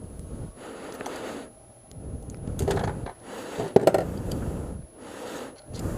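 Small metal mounting hardware being handled and fitted by hand: irregular clinks and scraping, with a sharp click a little before four seconds in.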